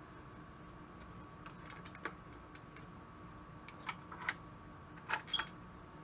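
Scattered clicks and taps from handling a Yamaha PF-50 direct-drive turntable while a 45 RPM record is set up: a few single clicks, then a louder cluster of clicks near the end, over a faint steady hum.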